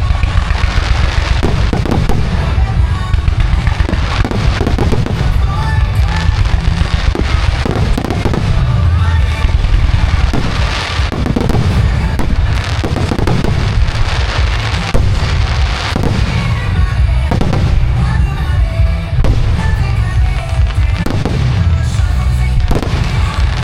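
Aerial fireworks bursting one after another, sharp bangs with booming low rumble, over music played to the show through loudspeakers.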